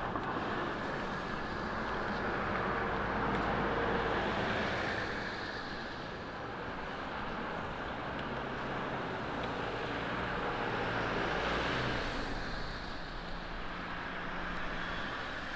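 Road traffic on a snowy street: cars passing with tyre noise and a low engine hum, swelling twice as vehicles go by.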